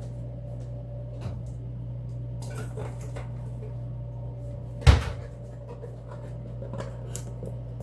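A kitchen cupboard door shutting with one sharp thump about five seconds in, with a few light clicks and knocks of things being handled around it.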